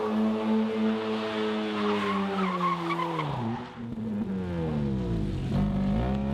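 Mazda RX-8's two-rotor Wankel rotary engine held at steady high revs while the rear tyres squeal and skid through a smoky donut. About three and a half seconds in the revs drop sharply, then climb and fall again in quick swings.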